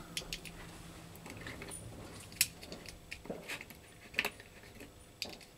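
Faint, scattered clicks and small knocks over a low hiss, the loudest about two and a half seconds in.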